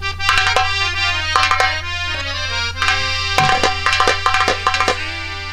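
Harmonium playing a melodic interlude of held, changing notes, with sharp drum strokes, over a steady low electrical hum.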